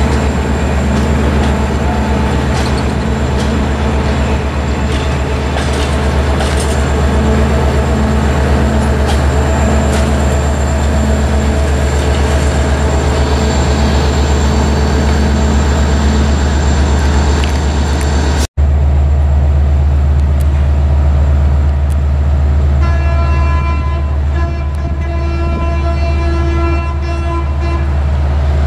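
Diesel locomotive's air horn sounding one long blast of about four and a half seconds, over a steady low rumble of a train running through the station.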